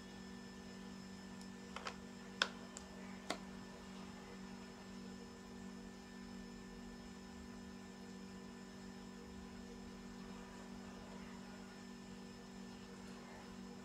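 Steady low electrical hum, with a few small sharp clicks about two to three seconds in.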